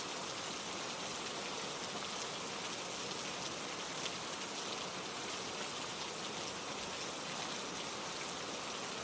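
Steady ambient rainfall, an even hiss of rain with faint scattered drop ticks.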